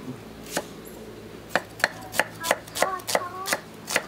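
Cleavers chopping food on thick round wooden chopping blocks. There is a single chop, then a steady run of chops at about three a second from a second and a half in.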